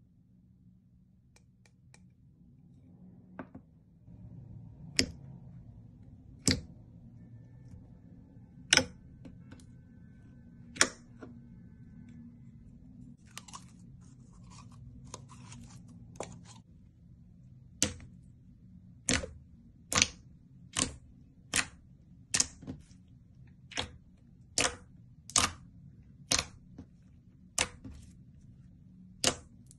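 Slime being pressed and worked by hand, giving sharp popping clicks. They come scattered at first, then in a steady run of a little more than one a second through the second half.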